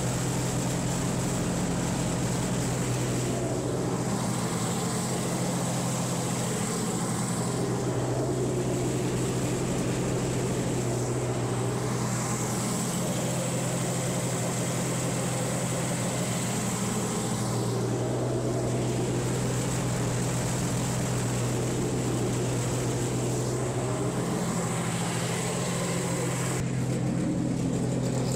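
NASCAR Xfinity-style Toyota GR Supra race car's V8 engine idling steadily at an even pitch during its start-up and leak check.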